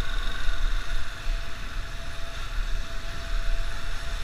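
Motorcycle engine running as the bike rolls along at low speed, with wind buffeting the microphone as a fluctuating low rumble.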